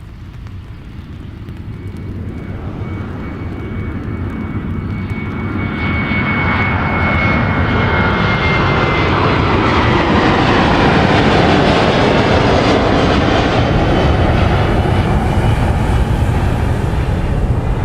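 Airliner engines growing steadily louder as the aircraft approaches and passes, a broad roar with a high whine that drops in pitch as it goes by, then holding loud.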